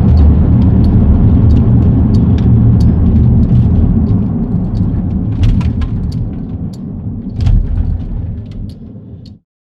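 Cabin noise inside a moving SUV: a steady low road-and-engine rumble with scattered small clicks and ticks. It fades down over the last few seconds, with one louder bump about seven and a half seconds in, then cuts off just before the end.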